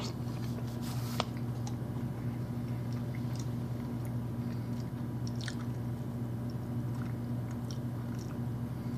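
Faint wet chewing of a mouthful of mac and cheese mixed with banana, with small scattered mouth clicks, over a steady low electrical hum.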